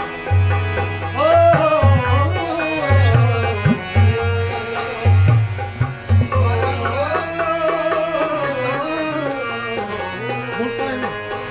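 Indian light music: a bulbul tarang (keyed Indian banjo) playing a melody over a steady tabla rhythm.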